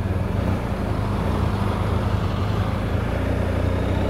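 BMW R 1250 GS Adventure's boxer-twin engine running at a steady, low note, with an even rush of noise over it.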